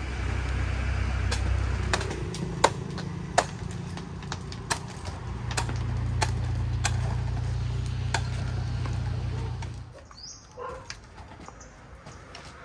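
Knife chopping fruit on a cutting board: irregular sharp taps over a low steady rumble that drops away about ten seconds in.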